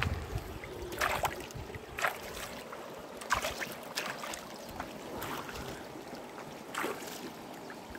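Hands splashing and sloshing vegetables (carrots, tomatoes, radish) in shallow river water while washing them: about half a dozen separate splashes over a steady background hiss.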